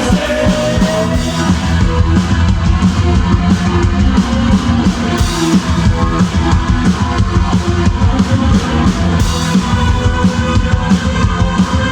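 Live rock band playing loud: a drum kit keeping up a busy, driving beat under guitars.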